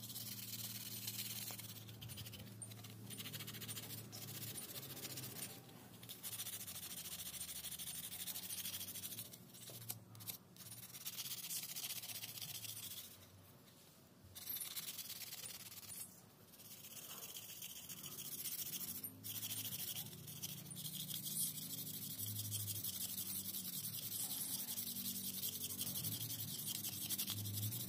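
Hand sanding of ice-cream-stick wood: sandpaper rubbing back and forth along a carved wooden keris blade, a scratchy hiss broken by a few short pauses.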